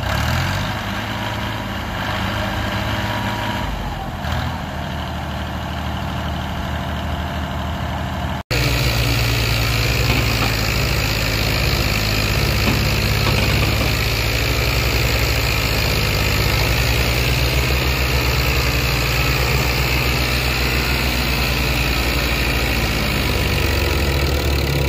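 Ghazi tractor's diesel engine running steadily under heavy load as it pulls an overloaded sugarcane trolley, heavy enough that the front wheels rise off the ground. About eight seconds in, the sound drops out briefly and comes back closer and louder.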